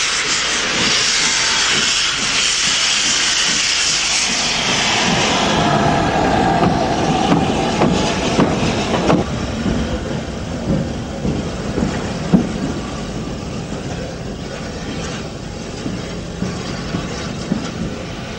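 Steam locomotive, a Southern Railway S15 4-6-0, getting under way: a loud hiss of steam from its open cylinder drain cocks for the first five seconds or so, then its exhaust beats as it pulls away, the hiss dying down.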